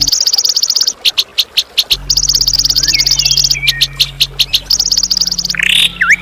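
Songbird giving harsh, rapid-fire trills: runs of very fast repeated high notes about a second long with short gaps, a few brief whistled slurs between them, and a louder call near the end. A steady low hum lies under most of it.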